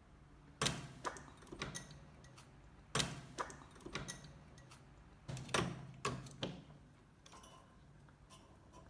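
Pet rabbit grunting sharply through its nose in three bouts: one under a second in, one about three seconds in, and a longer one from about five to six and a half seconds. Each bout is a loud burst followed by a few smaller ones.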